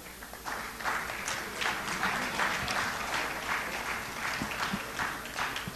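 Audience applauding: many hands clapping at once, starting just after the beginning and keeping an even level.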